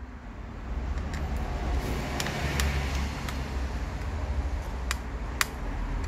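Handling clicks from a laptop's thin metal SSD shield being pressed, pried and lifted by hand: a handful of sharp light clicks and ticks, the loudest a little after five seconds in, over a steady low rumble.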